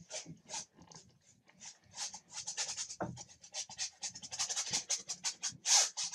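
Paintbrush scrubbing acrylic paint onto a stretched canvas: a dry, scratchy rasp with each back-and-forth stroke, sparse at first, then several strokes a second after about two seconds, with one louder stroke near the end.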